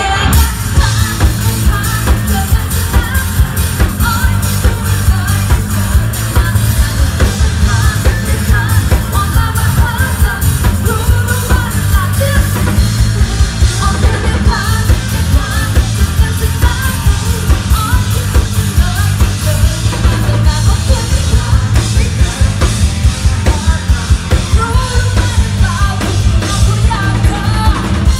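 Live pop-rock band: a woman singing into a microphone over drum kit, bass guitar and keyboard, with a steady driving beat. Loud and continuous.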